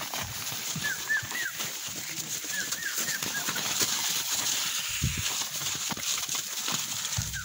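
A small bird chirps in two quick runs of three or four notes over a steady hiss of livestock-yard ambience, with a couple of low thumps later on.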